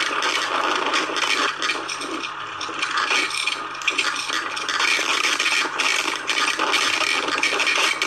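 Continuous rubbing and scraping noise, uneven, with many small scratches: handling noise from a recording phone's microphone brushing against fabric or a pocket.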